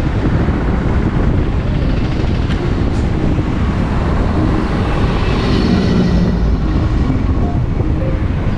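Steady low rumble of road and wind noise from a moving vehicle in traffic, swelling a little about six seconds in.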